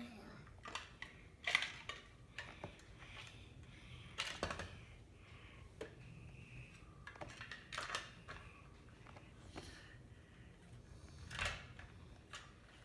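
Scattered light clicks and taps at irregular intervals from a small child handling plastic toys on the floor.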